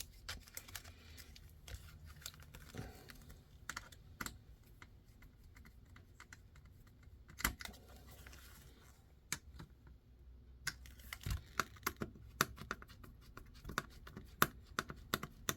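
Irregular small clicks and light taps of screws, small parts and hand tools being handled on a workbench during an RC crawler kit build, with a couple of slightly louder knocks and the clicks coming faster near the end.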